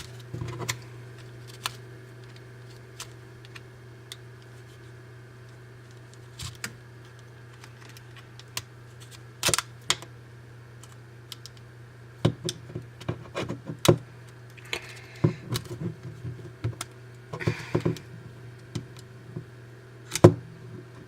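Irregular small clicks and taps of a Sony Ericsson W580i slider phone's plastic casing being handled and pried at its clips, sparse at first and coming in busier flurries in the second half.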